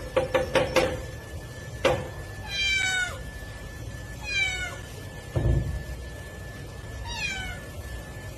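Domestic cat meowing three times, each meow falling in pitch. Before the first meow, a quick run of knocks ends about a second in and a single sharp knock follows, and there is a low thump between the second and third meows.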